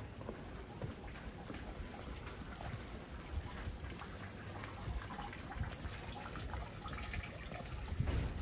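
Rainwater trickling and dripping under steady light rain, with a hiss of drops and scattered small ticks and low bumps.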